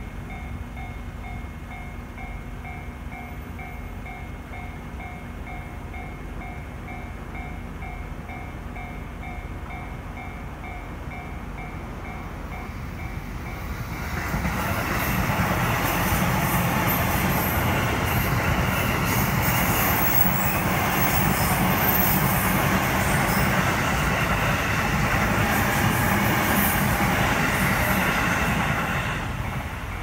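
Japanese level-crossing warning bell ringing with a steady repeating ding. About fourteen seconds in, a JR Takasaki Line electric commuter train passes with loud rushing wheel-and-rail noise for about fifteen seconds that drowns the bell, which is heard again as the train clears near the end.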